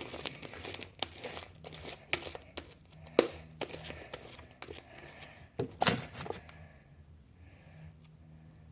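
Homemade slime being squished and stretched by hand: a quick run of crackling clicks and pops that stops about six and a half seconds in.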